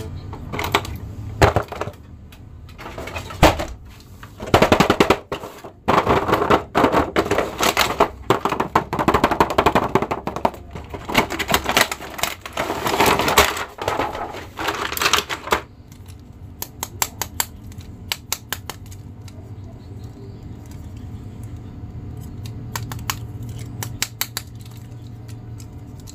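Clear plastic blister tray crinkling and crackling in rapid runs as action figures are handled and pulled out of it. After about 16 s it settles to occasional light clicks.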